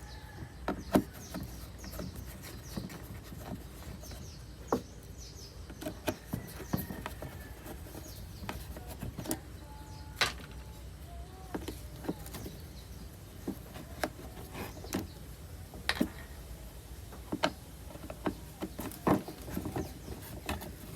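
Irregular sharp clicks and knocks, a few loud, of hands and tools working a Bluetooth speaker's plastic casing apart to reach its broken charging port.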